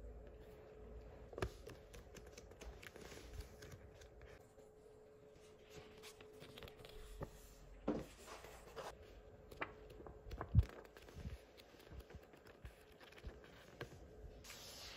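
Paper ephemera and die-cut paper pieces handled and shuffled by hand: soft rustles, flicks and taps of paper and card, with one louder tap about ten and a half seconds in. A faint steady hum sits underneath.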